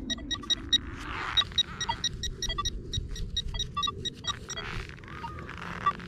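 Metal-detecting pinpointer falsing: rapid, irregular short beeps, several a second, with no target present. The false signals are set off by interference from a nearby Nokta Makro Legend metal detector. A few brief rustles can be heard among the beeps.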